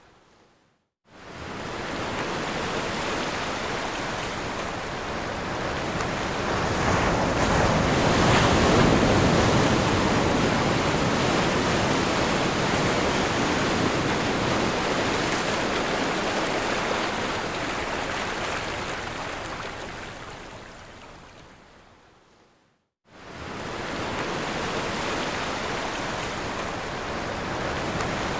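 Ocean surf breaking and washing up the shore in a steady rush. It swells loudest about eight seconds in, fades away to a moment of silence near the end, then starts again suddenly.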